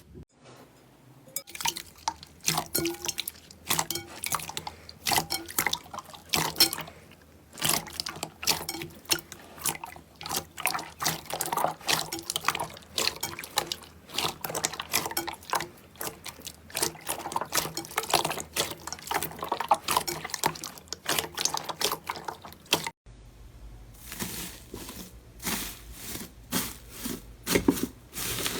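Slime being squished and stretched by hand: a dense run of wet clicks, pops and squelches. The sound breaks off abruptly about 23 seconds in and resumes from another batch of slime, now with a low steady hum underneath.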